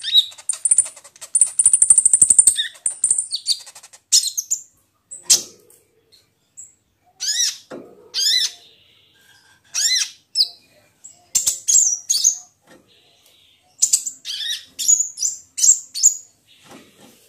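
Sunbird (kolibri ninja) singing: a rapid, high buzzing trill in the first few seconds, then a string of short, high-pitched chirps and quick sweeping notes in separate bursts with brief gaps between them.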